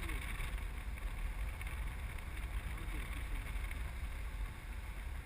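Wind rushing over the microphone in flight on a tandem paraglider: a steady low rumble with an even hiss of air.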